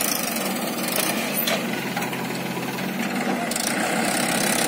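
Diesel engines of a farm tractor and a JCB backhoe loader running steadily together, a continuous mechanical drone.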